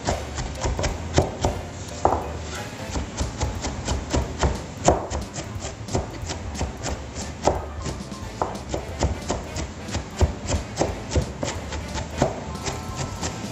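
Large chef's knife rapidly chopping a pale green vegetable on a cutting board: quick, uneven knife strikes, several a second, over background music.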